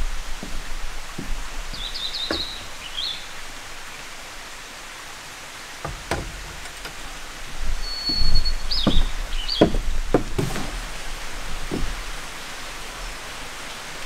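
Metal camping lanterns set down on a wooden deck table: a scattering of light knocks and clunks, busiest in the second half. Birds chirp briefly twice over a steady outdoor background hiss.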